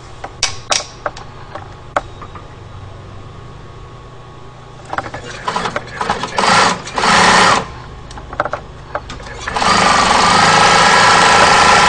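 Bernina 950 industrial zigzag sewing machine stitching a decorative design stitch. A few sharp clicks come first over a steady low hum. About five seconds in there are two short bursts of fast stitching, and near the end one steady run of about three seconds.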